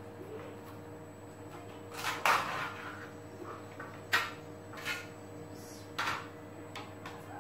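A few sharp knocks and clinks of dishes and utensils being handled at a kitchen counter, the loudest about two seconds in, over a steady low hum.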